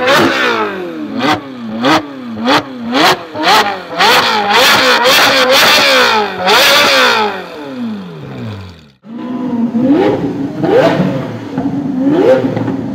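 Ferrari 458 Speciale's V8 with a Fi valved exhaust, revved again and again at standstill, each rev rising and dropping back with sharp pops and cracks from the exhaust; after the last rev the engine note falls away and cuts off about nine seconds in. Another car's engine is then heard in short rising rev blips.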